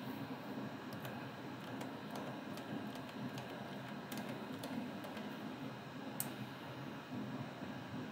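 Scattered light clicks of a computer mouse, about one every second at irregular spacing, with one sharper click near the end, over a steady low background hum.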